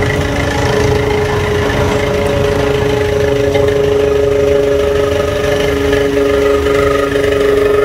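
Vintage touring car's engine running steadily as the car rolls slowly past at low revs, an even hum over a low rumble.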